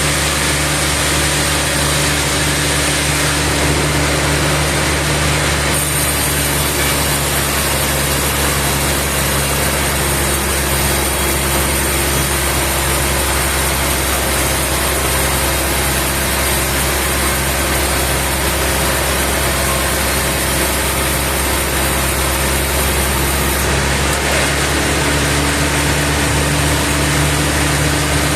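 Sawmill machinery running steadily, a motor-driven saw with a low, even drone. From about six seconds in until near the end, a brighter hiss rides over it.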